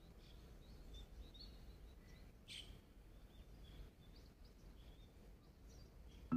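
Faint outdoor ambience: small birds chirping now and then over a low steady rumble, with one louder chirp about two and a half seconds in.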